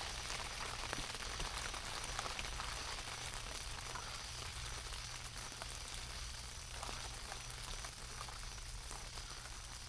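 Steady rain pattering on a tent, an even hiss of many fine drops.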